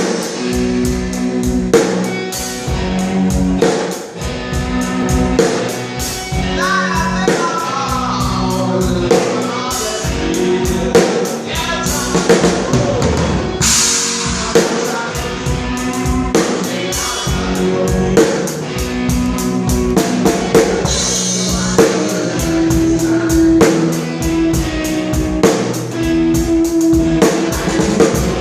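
Rock band playing live at a sound check: a drum kit keeps a steady beat under electric guitar and bass.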